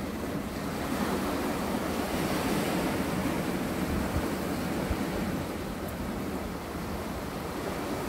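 Small sea waves washing and breaking against a flat, layered rock shelf: a steady surf wash that swells a little in the first few seconds.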